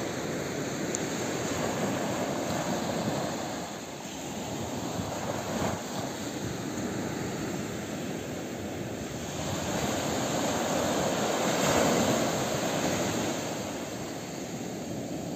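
Small sea waves breaking and washing up a sandy beach, as a rushing noise that swells in the first few seconds, eases off, and swells again about two-thirds of the way through.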